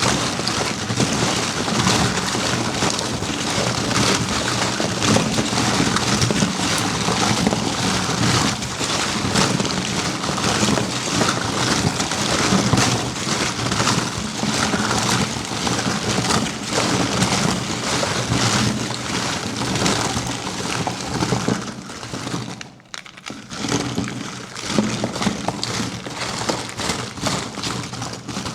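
Dense, continuous crinkling and rustling of wrapping being handled, with a brief lull near the end.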